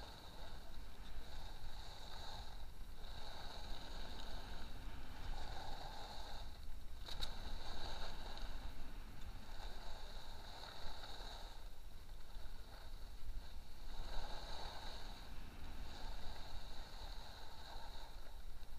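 Skis carving turns on groomed snow, a scraping hiss that swells and fades with each turn about every two seconds, over a low rumble. One sharp click about seven seconds in.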